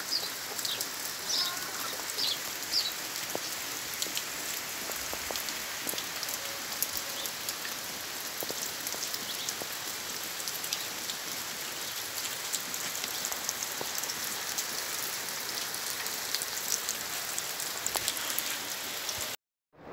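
Steady rain falling on trees and open ground, an even dense hiss. A few short, high chirps come through in the first three seconds, and the sound cuts off abruptly just before the end.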